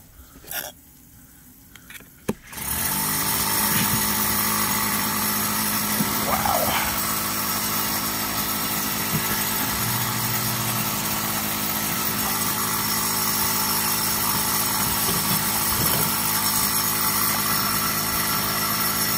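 A motor starts up about two and a half seconds in, after a couple of knocks, and then runs loud and steady at an unchanging pitch.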